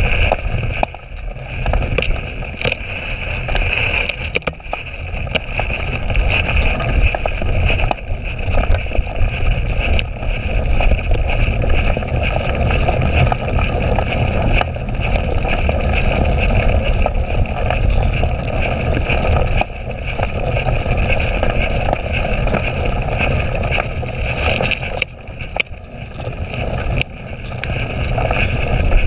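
Wind buffeting the microphone of a handlebar-mounted camera as a cyclocross bike rides over bumpy wet grass and mud, with steady tyre and rolling noise and many small knocks and rattles as the bike jolts. The noise eases briefly a few times, as the rider slows.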